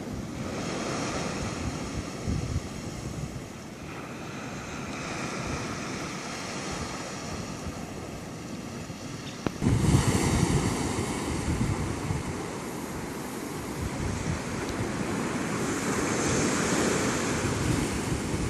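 Ocean surf washing up a sandy beach and breaking over rocks, with wind buffeting the microphone. The surf becomes louder with a sudden jump a little past halfway.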